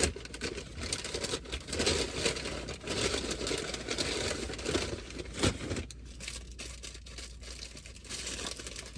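Paper fast-food packaging crinkling and rustling as it is handled and opened, busiest for the first six seconds, then quieter.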